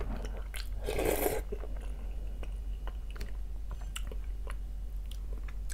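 A person eating fish soup up close: a short noisy slurp of broth from a wooden spoon about a second in, then soft chewing and small lip-smacking clicks.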